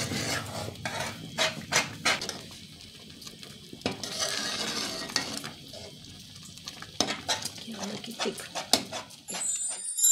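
Metal ladle stirring thick bulgur porridge in a metal cooking pot, with irregular clinks and scrapes against the pot's sides and the porridge bubbling at a simmer.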